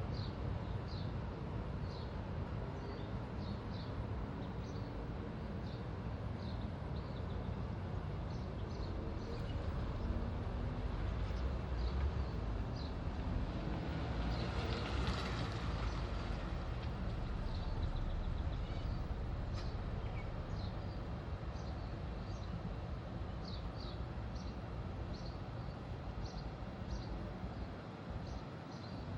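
Outdoor ambience: a steady low rumble with small birds giving short high chirps every second or so, and a swell of rushing noise about halfway through.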